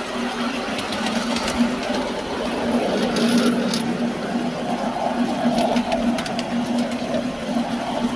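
Miniature railway train running along the track: a steady mechanical hum with rumble and occasional clicks from the wheels on the rails.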